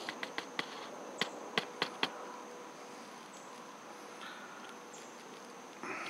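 Insects humming steadily, a high, even drone with a fainter lower hum beneath it. About ten sharp clicks come in the first two seconds.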